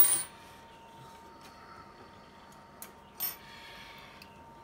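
Short metallic clatters of small lathe parts being handled: one sharp scrape-clatter at the start and another about three seconds in, as a threading dial is fitted to a mini lathe's lead screw. Under them is a faint steady hum with a thin whine.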